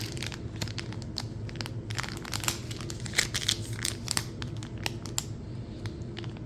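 Hands rummaging through stickers and crinkly packaging in a bag pouch: an irregular run of crinkles and crackles, densest around the middle.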